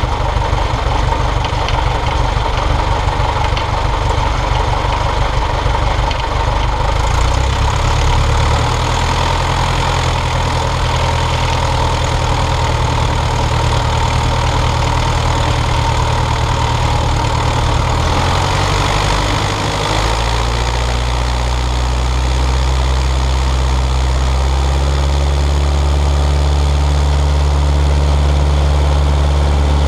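Piper Cub's engine and propeller running at low power, heard close up beside the cowling. The engine speed steps to a new pitch about a quarter of the way in and again about two-thirds of the way in, and it runs a little louder after the second change.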